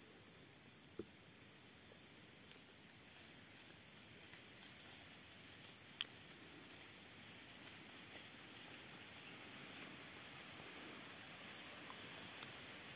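Faint night insect chorus, crickets and other insects trilling steadily in high tones, with a single sharp click about six seconds in.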